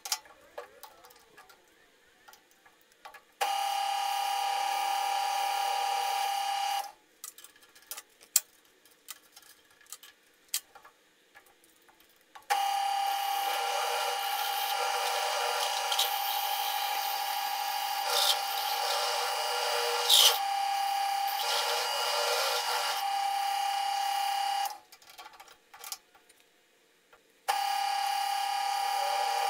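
Drill press motor running with a steady whine in three separate runs, starting and stopping, as bits cut holes through a steel tube held in a vise. The long middle run, with a step drill, carries rougher cutting noise and a couple of sharp squeaks; between runs there are small clicks and knocks of the metal being handled.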